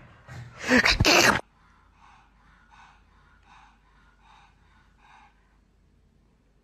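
Pug breathing noisily through its flat nose: a loud, sharp burst of breath about half a second in, then faint, rhythmic snuffly breaths about every two-thirds of a second that stop near the end. This is the laboured breathing typical of the breed's short muzzle.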